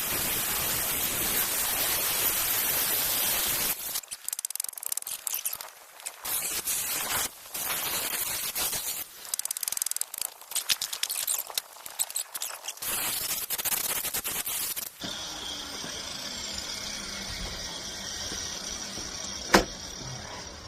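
Power saw with a masonry blade cutting concrete piers: a long cut, then shorter bursts that stop and start several times. About 15 s in, it gives way to a quieter steady noise, with one sharp knock near the end.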